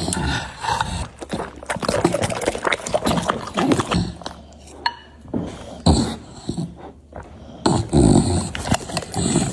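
Dogs making irregular short sounds, mixed with sharp clicks.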